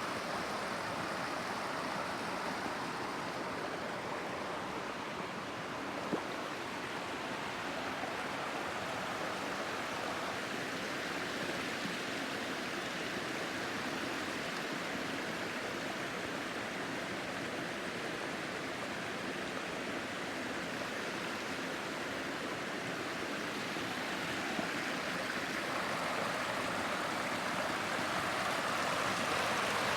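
Small waterfall: water rushing and splashing steadily, with a brief click about six seconds in.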